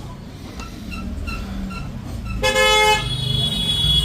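A vehicle horn honks loudly for about half a second, followed by a higher steady tone held for about two seconds, over a low traffic rumble.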